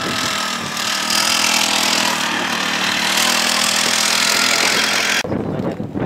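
Small two-stroke engine on a motorized tricycle running under load with a steady, buzzing pitch that climbs slightly as the trike gets going. It cuts off suddenly about five seconds in.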